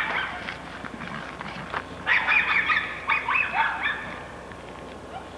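Geese honking, a quick series of calls about two to four seconds in, after a brief sharp sound at the very start.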